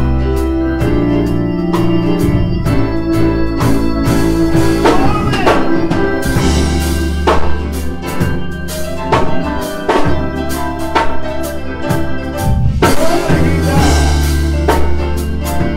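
A live church band playing: sustained organ chords on electronic keyboards, with a drum kit striking along.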